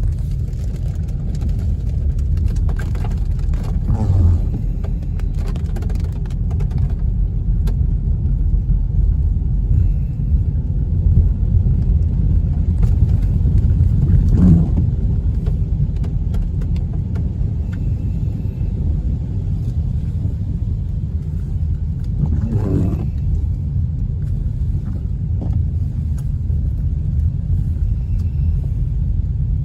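Vehicles passing on a flooded road, three swells that rise and fade about four, fourteen and twenty-two seconds in, over a steady low rumble.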